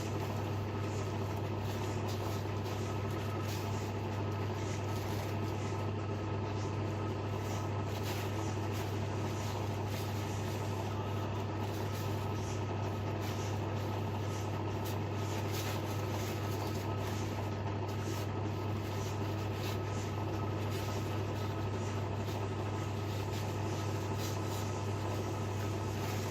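Steady low hum at an even level, with faint light handling noises over it.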